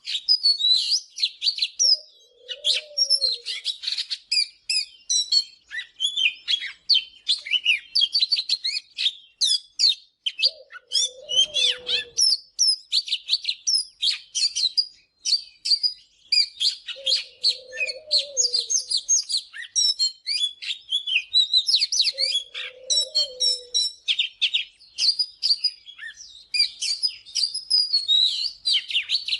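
Oriental magpie-robin singing a long, rapid run of varied high whistles, chirps and trills without pause. A separate low, arched note sounds underneath about four times, a few seconds apart.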